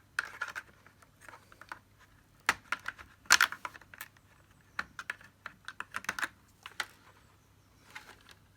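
Irregular light clicks and taps of plastic Dyson DC50 vacuum cleaner parts being handled, with a few louder knocks in the middle.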